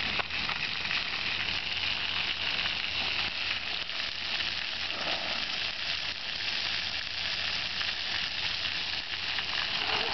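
Steady hiss of splash-pad fountains: water jets spraying up and pattering down onto the wet pad.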